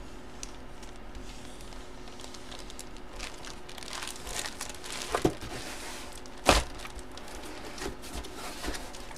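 Clear plastic sleeve crinkling and rustling as a jersey is handled and slid into it, with scattered small clicks. Two sharper knocks come in the second half, the later one the loudest.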